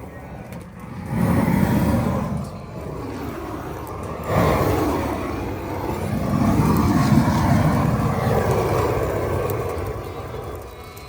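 Propane torch firing in surges of rushing flame noise: a swell about a second in, another starting sharply a little after four seconds, and a longer one from about six to nine and a half seconds.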